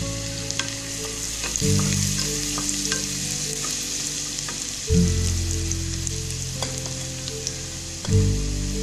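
Finely chopped aromatics frying in hot oil in a non-stick pan: a steady sizzle with scattered pops, and a wooden spatula stirring and scraping through them. Under it, background music of held low chords changes about every three seconds.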